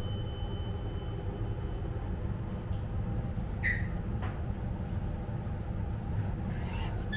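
Steady low background rumble of room noise, with a brief faint tap or clink about four seconds in; the knife slicing the tuna is not clearly heard.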